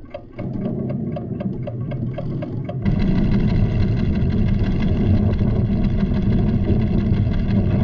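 A measuring instrument ticking steadily, about four ticks a second, while a low rumble comes in about half a second in. About three seconds in, the rumble jumps suddenly much louder and goes on steadily, standing for the volcano's tremors.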